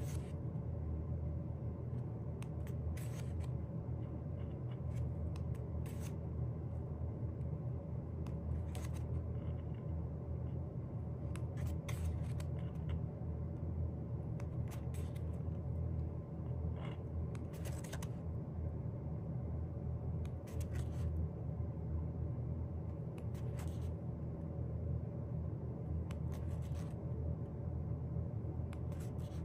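Paper and packaging being handled during an album unboxing, with brief rustles or clicks about every three seconds over a steady low hum.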